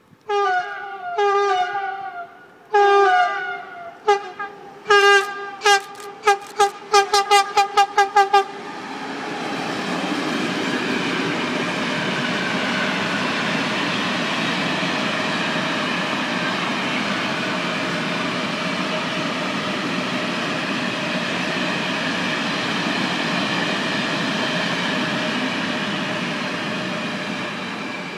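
A Siemens Vectron-family electric locomotive sounds its horn in three longer blasts, then a quickening string of about ten short toots. Its train of tank wagons then rolls past in a steady, loud rolling noise that fades near the end.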